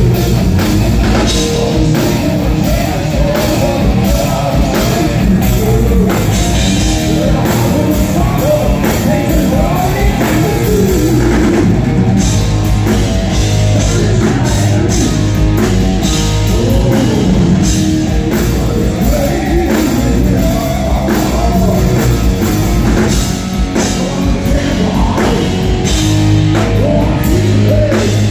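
Live hard rock band playing loud: distorted electric guitars over a drum kit and keyboards, with a male singer.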